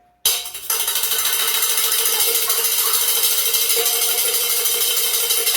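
Spoons played as a percussion instrument, clattered together in a fast, continuous metallic rattle that starts abruptly and holds an even level.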